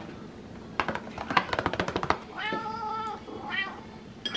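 Domestic cat begging for tuna: a quick run of clicking taps about a second in, then a meow lasting well over half a second, and a short chirp-like call near the end.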